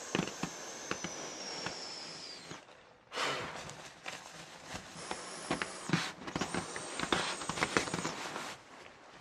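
A nylon pump sack being squeezed to inflate an air sleeping pad: air hisses through the valve with crinkling and rustling of the fabric. The hiss dies away briefly about three seconds in, then starts again with more crackling of the nylon as the sack is pressed down once more.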